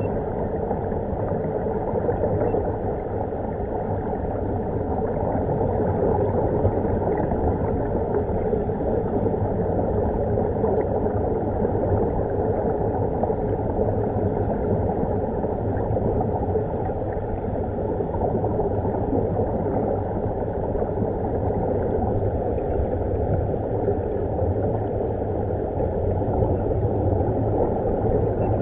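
Steady, muffled rush and gurgle of air bubbles streaming underwater from the diving helmets' air supply and a scuba regulator.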